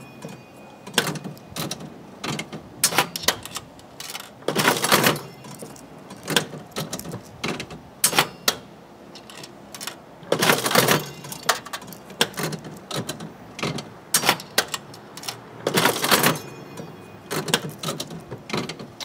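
Vintage 10-cent Golden Nugget one-armed bandit being played: three handle pulls about five to six seconds apart, each a loud mechanical clatter of the lever and spinning reels. Smaller sharp clicks and clunks come between them as the reels stop and dimes drop in.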